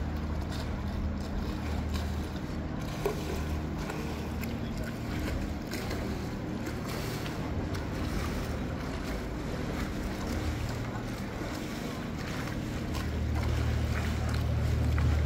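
A steady low engine drone under wind and water noise, growing louder near the end.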